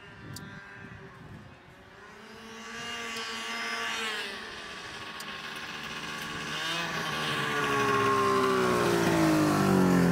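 Snowmobile engine approaching, growing steadily louder; its pitch drops over the last couple of seconds as the sled slows and pulls up close.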